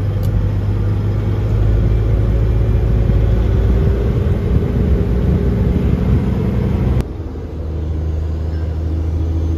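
Peterbilt 379 semi truck's diesel engine running under way, heard from inside the cab as a steady, loud low rumble, with a faint tone slowly rising in pitch as it pulls. About seven seconds in the sound drops suddenly to a lower, different engine note.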